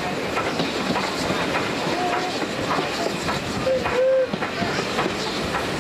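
Heritage railway carriage running along the track, heard from on board: a steady rumble with wheels clattering over the rail joints and a few brief squeals, the longest about four seconds in.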